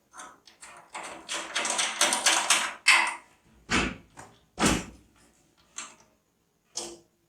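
Handling noises while working on PC parts: a stretch of crinkling and rustling, then two dull thumps about a second apart, followed by a couple of short sharp clicks.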